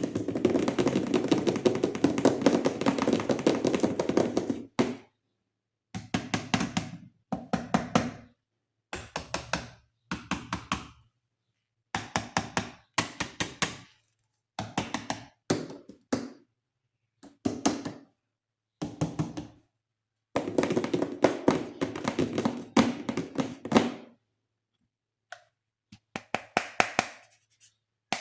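Hands rapidly tapping and knocking on toys, in bursts of about one to five seconds separated by silent gaps; the longest bursts are at the start and about twenty seconds in.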